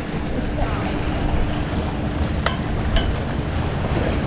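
Wind buffeting the microphone over surf washing against the jetty, with two short clicks a little past halfway.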